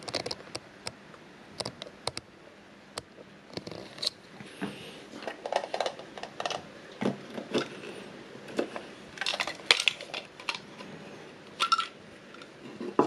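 Hard plastic clicks, knocks and rattles of a Thomas the Tank Engine candy dispenser toy being handled and pulled apart, with coated chocolates clattering inside its base. The clicks come irregularly, with a quick run of louder ones a little past the middle.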